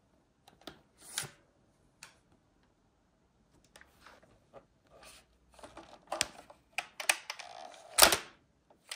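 Plastic toy sword being handled: scattered clicks and rustling, with a louder knock about eight seconds in.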